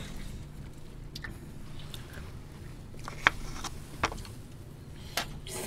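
People eating with chopsticks: quiet chewing with a few short, sharp clicks, the sharpest about three seconds in, over a faint steady low hum.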